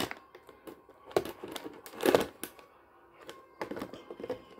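Clear plastic blister packaging crinkling and squeaking in irregular sharp snaps and clicks as a knife cuts toy figures loose from their tray.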